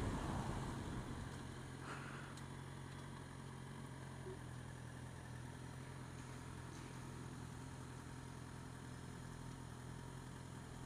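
Motorcycle engine idling with a steady low hum, after wind and road noise fade away in the first second or two as the bike slows to a stop.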